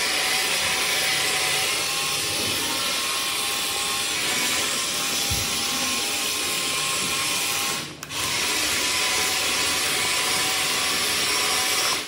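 Small electric gear motors of toy excavators whirring steadily while the plastic tracks and wheels drive over a tile floor, with a brief dropout about eight seconds in.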